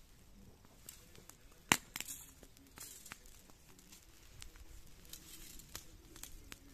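Smouldering pile of dry grass and sweet potato vines burning, crackling with scattered snaps and one sharp pop nearly two seconds in.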